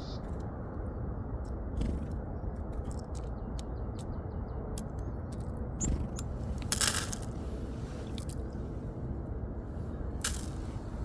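Outdoor bird-feeding ambience: a steady low wind rumble with scattered sharp clicks and scrapes, and a few faint high chirps of small tits. Louder brief rustles come about 7 s and 10 s in.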